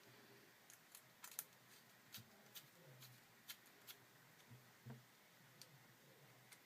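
Faint, irregular light clicks and taps of hands working on a Mac Mini's internals during a hard drive swap, about a dozen in all.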